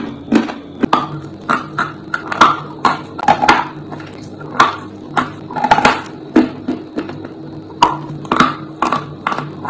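A lump of dry chalk being bitten and chewed close to the microphone: irregular sharp crunches, two or three a second.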